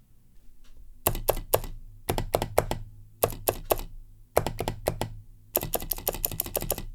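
Large buttons of an 8BitDo keyboard's two-key macro pad pressed repeatedly in short bursts of sharp clicks, about five bursts with brief pauses, the last faster and longer. The pad's switches are clicky, one of them a stiff Zeal Clickiez swapped in so the big button returns properly.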